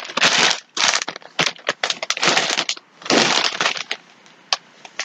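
Packaging rustled and crinkled by hand while rummaging in a box, in about five quick bursts over the first three and a half seconds, then a few faint clicks near the end.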